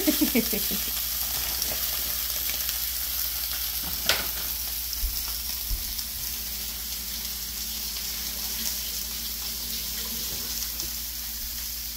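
Seasoned, oil-coated walleye fillets sizzling steadily as they sear in a hot cast-iron pan, with one sharp click about four seconds in.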